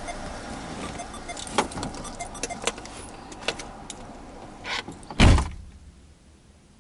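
A car door slammed shut, heard from inside the car: one loud heavy thud about five seconds in, after which the street sound is cut off. Before it, a few light clicks and rattles of keys as the driver climbs out.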